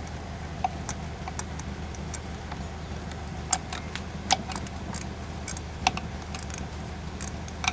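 Irregular light metallic clicks and clinks as a ratchet and socket are worked onto a 10 mm bolt on a small outboard motor's tiller mounting, a few in quick succession near the end, over a steady low hum.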